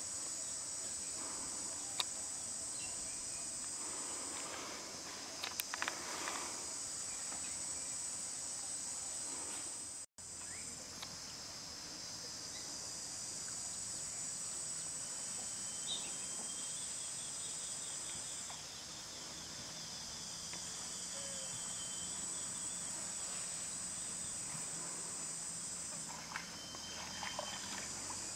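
Steady, high-pitched chorus of insects, breaking off briefly a few times, with a few faint clicks.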